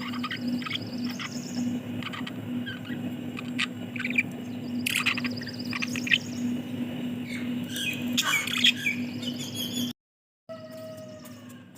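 Budgies chirping and squawking in short, scattered calls over a steady low hum. The sound cuts out completely for about half a second near the end.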